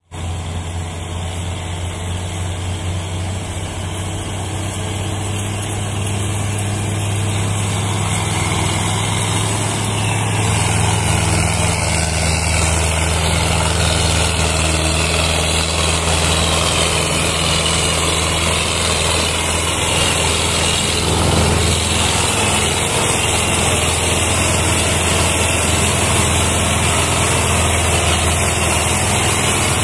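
Belarus tractor's diesel engine running steadily while pulling a trolley heavily loaded with sugarcane, growing louder over the first ten seconds or so and then holding.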